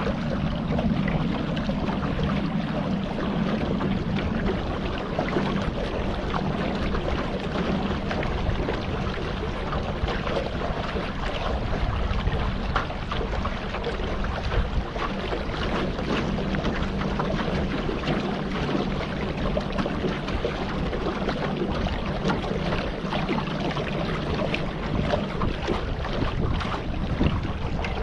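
Small boat under way on the water, its motor running steadily with a low hum, with wind rushing across the microphone.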